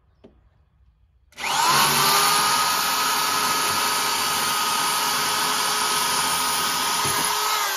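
BAUER 7.5 amp half-inch corded hammer drill set to drill-only mode (hammer off), boring into a concrete block with a quarter-inch masonry bit. The motor spins up about a second and a half in, runs with a steady whine, and begins to wind down at the very end.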